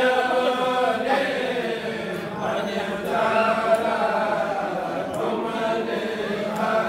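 Kourel: a circle of men chanting a xassida, a Sufi devotional poem, together in chorus. The voices hold long notes and move from note to note without a break.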